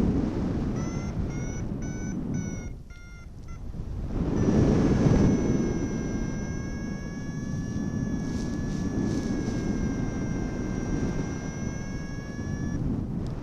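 Paragliding variometer beeping about twice a second, the pitch creeping upward, which signals the glider climbing; after a short gap it gives one steady held tone for about eight seconds that cuts off sharply. Wind buffets the microphone underneath.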